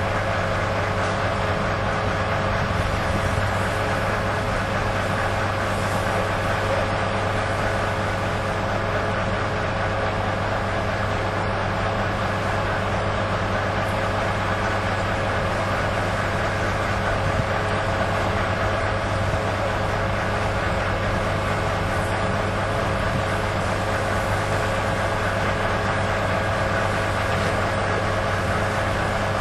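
Fire engine running steadily at the scene of a building fire: a continuous engine drone with a steady low hum that does not change.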